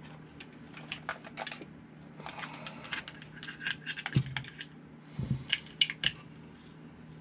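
Hands handling a 1/10 RC buggy chassis on a workbench: a run of small clicks, taps and light rattles of parts and wiring, with the chassis set down with a thump about four seconds in.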